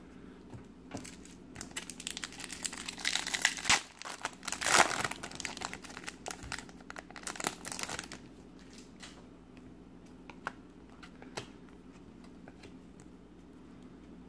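Shiny foil trading-card pack wrapper crinkling and tearing as the pack is ripped open, loudest about four to five seconds in. After about eight seconds only light, scattered clicks of the cards being handled.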